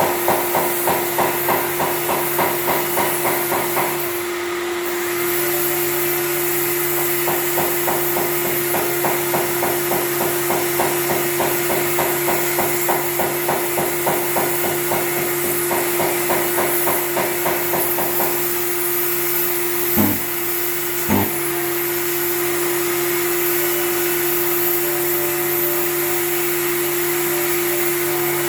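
Power sander running with a steady hum, worked back and forth across a car bumper in rhythmic strokes about two and a half a second. The strokes stop about two thirds of the way in, followed by two sharp knocks and then the sander running on steadily.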